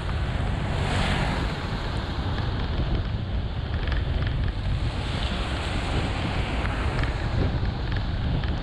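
Vehicle driving through heavy rain on a waterlogged road: a steady low rumble with a continuous rushing of tyres on water and rain, and a brief louder rush about a second in.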